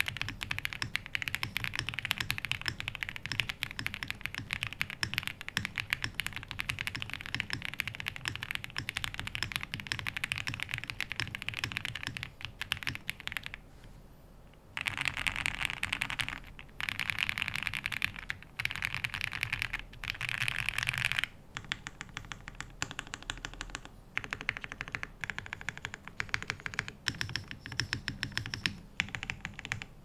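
Mechanical keyboard typing: a KBDFANS Odin V2 with lubed Gateron Yellow linear switches, a PC plate and full foam, typed on quickly. The clatter is steady at first and pauses briefly about halfway. After that it comes in short dense bursts, and it grows sparser near the end.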